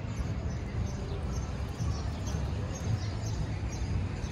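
Street ambience: a steady low rumble with birds chirping over it in many short, high, falling notes.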